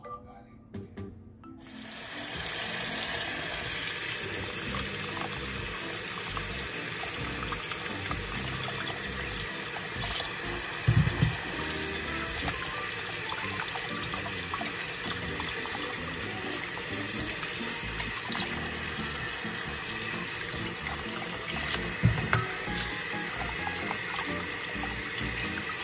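Cold tap water running steadily into a pot in a sink, splashing over pork neck bones being rinsed by hand, starting about a second and a half in. Two short low knocks, one near the middle and one later.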